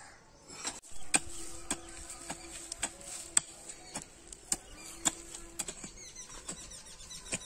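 A hand hoe chopping into dry soil, about two sharp strokes a second. From about six seconds in, a quick run of faint high chirps comes in.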